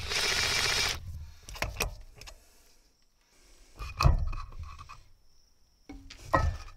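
A cordless power tool runs for about a second, spinning loose the nut on the centre rod of a bulldozer's hydraulic filter. Metal clinks and knocks follow as the wire-mesh filter elements are worked off the rod, with two sharp knocks, about four seconds in and near the end.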